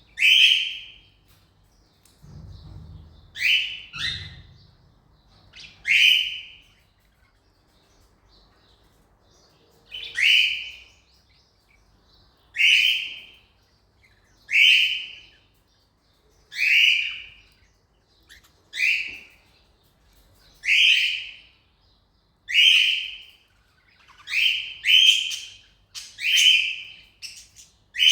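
Cockatiel giving loud, shrill contact calls, one short call about every two seconds, with two in quick succession near the end.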